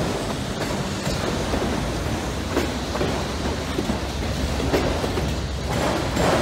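Freight train of autorack cars rolling past close by: a steady rumble of steel wheels on the rails, with a sharp clack of the wheels about every two seconds.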